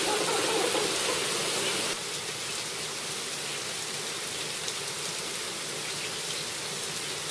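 Steady rain falling, an even hiss. About two seconds in it drops to a softer, thinner hiss with faint scattered drop ticks.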